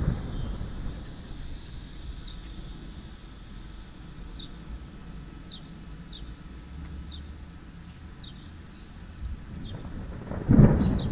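Thunder from nearby lightning strikes: a low rumble dying away, then a sudden loud thunderclap about ten and a half seconds in.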